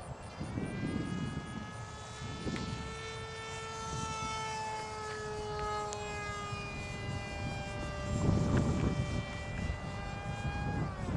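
Electric motor and 7x5 propeller of a foam RC model jet whining as it flies, running on a 3-cell pack. Its pitch drifts slowly downward over several seconds and drops again near the end. Wind buffets the microphone about eight seconds in.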